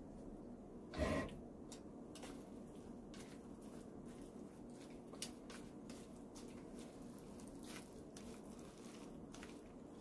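Wooden chopsticks stirring seasoned vegetables in a stainless steel bowl: faint wet squishing and scattered light clicks, with one short louder burst of noise about a second in.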